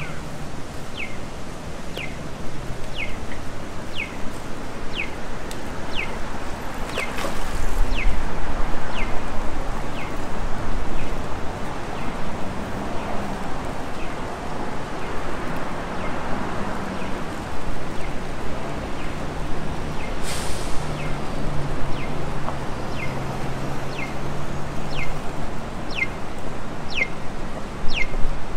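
Electronic pedestrian-crossing signal chirping: a short falling bird-like chirp about once a second, stopping for about ten seconds midway and then starting again. Traffic hums underneath, with a brief sharp hiss about twenty seconds in.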